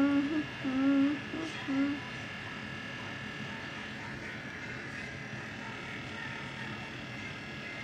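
A girl humming a few short held notes for about two seconds. After that comes only a steady faint background hum with a thin high whine.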